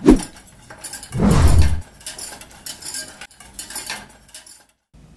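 A glass knocks on a wooden cutting board, a louder low thud follows about a second later, then a wire whisk scrapes and clinks against a stainless-steel saucepan in quick strokes, stopping shortly before the end.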